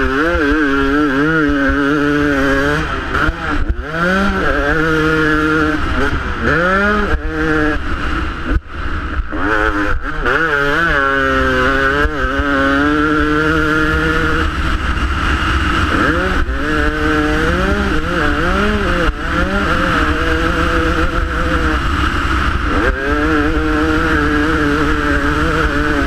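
Motocross dirt bike engine at full race pace, revving up and falling back again and again as the throttle is opened, gears are shifted and the throttle is chopped for jumps and corners. Heavy wind rumble on the bike-mounted camera's microphone runs underneath.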